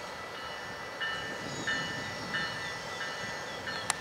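Tri-Rail commuter train running away down the line with a low rumble, while a ringing tone repeats about every two-thirds of a second from about a second in; a sharp click just before the end.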